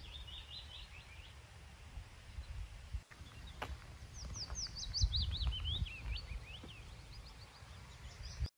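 Wind rumbling on the microphone while small songbirds chirp, with a longer run of quick, falling song notes about four seconds in.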